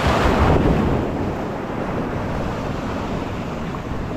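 Ocean surf breaking and washing around a wading angler, with wind buffeting the microphone. Loudest as a wave breaks at first, then a steadier wash of water.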